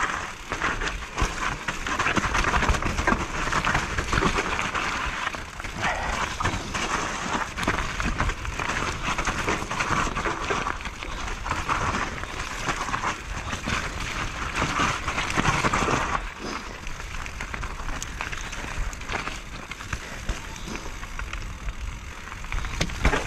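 Mountain bike riding down a dirt trail: a steady rush of tyre and air noise with frequent rattles and knocks from the bike over bumps.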